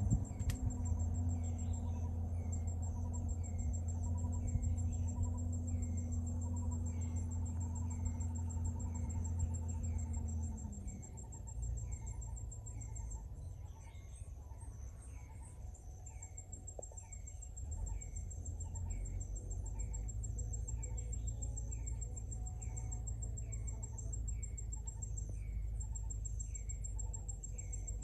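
Insects calling: a steady high-pitched trill with a short chirp repeating about once a second. A low hum underneath stops about ten seconds in.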